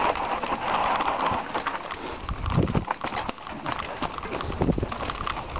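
Mountain bike descending a rough dirt trail: tyres running over dirt and stones with a constant clatter of clicks and knocks from the bike, and two heavier thumps, about two and a half and four and a half seconds in.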